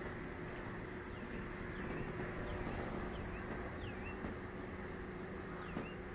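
Steady background hum with a thin steady tone in it, and faint short high chirps every half second or so.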